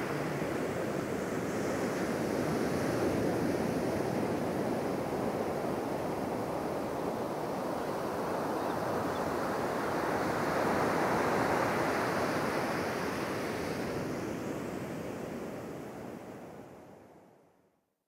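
Steady rush of wind and waves, swelling and easing gently, fading out near the end.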